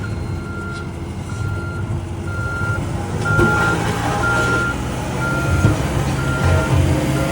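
Back-up alarm on a heavy construction vehicle beeping steadily about once a second while it reverses, over the low rumble of diesel engines.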